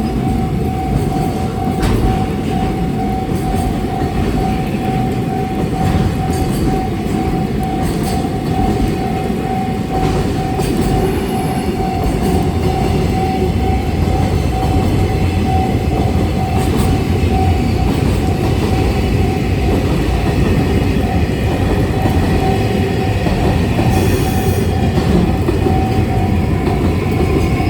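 Freight train rolling past with a dense, steady rumble of wagons, wheels clicking over rail joints every few seconds and a steady whine running through it. Near the end, a rising squeal begins.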